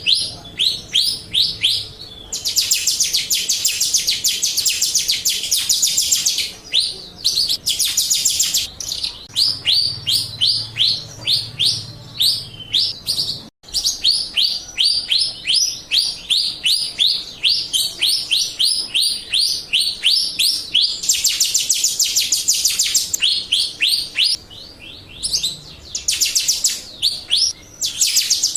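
Jalak Rio starling calling: a fast series of sharp, down-slurred chirps, about four a second, broken now and then by dense, high rattling trills. This is a lure recording meant to set other birds of the kind calling.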